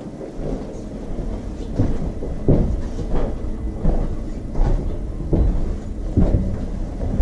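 Footsteps on a polished wooden corridor floor, a steady walking pace of about one dull knock every three-quarters of a second, over a low rumble.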